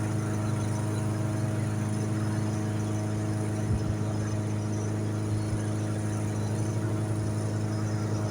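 Lawn mower engine running at a steady speed, a constant hum with no change in pitch.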